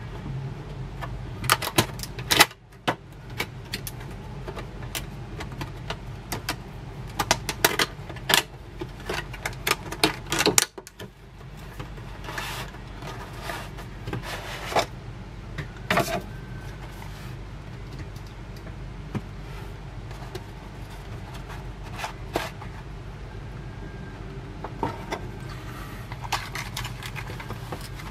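Clear plastic packaging and a cardboard insert handled and pried apart by hand: irregular clicks, taps and crinkles over a steady low hum.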